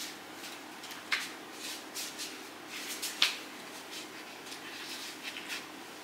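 A small child's oversized slippers scuffing and slapping on a tiled floor: a few short, irregular scuffs, the sharpest about a second in and about three seconds in, with lighter ones later.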